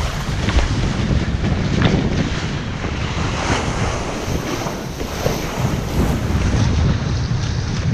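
Heavy wind buffeting the microphone over the rush and splash of sea water as a kiteboard skims fast across the surface.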